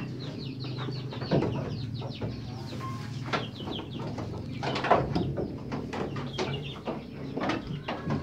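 Birds chirping in quick runs of short falling notes, with a few sharp knocks, the loudest about five seconds in, over a steady low hum.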